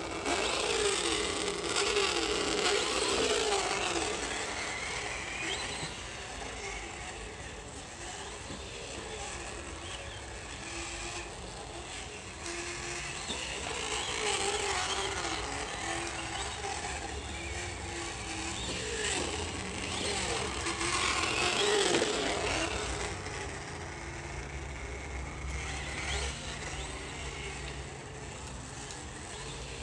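Traxxas on-board sound speaker playing a recorded V8 super-truck engine note as the RC truck drives, the revs rising and falling with the throttle; it is loudest near the start and again a little past the middle.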